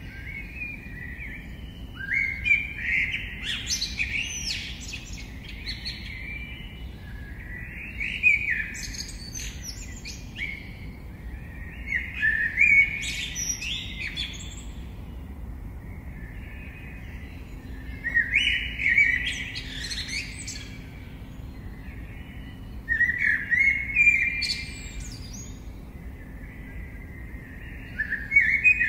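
Birdsong: a songbird singing short, varied phrases of chirps and trills, one every four to five seconds, over a faint steady outdoor background.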